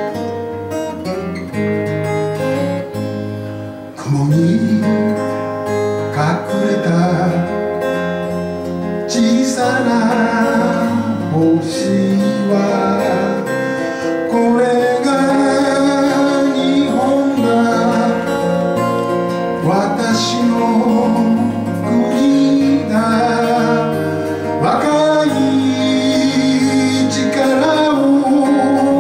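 Acoustic guitar strummed as a folk-song accompaniment, growing louder about four seconds in. A man's singing voice joins from about nine seconds in.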